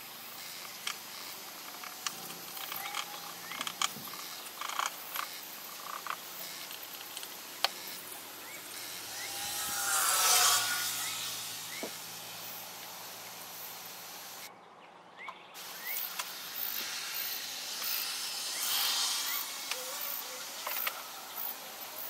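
Scattered small clicks and taps from handling the wooden pieces of a band saw box and a bottle of wood glue, over a steady high-pitched insect chorus. A louder rushing noise swells and fades about ten seconds in.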